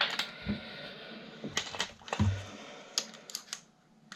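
A string of light clicks and knocks, about eight in four seconds, with one duller knock a little past halfway: small plastic and metal desk-fan parts being handled and set down during disassembly.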